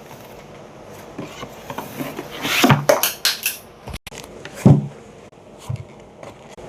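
Unboxing handling: the speaker's packaging being opened and moved about, giving scattered clicks and knocks, a louder stretch of rustling and clicking around the middle, and a single thump about four and a half seconds in.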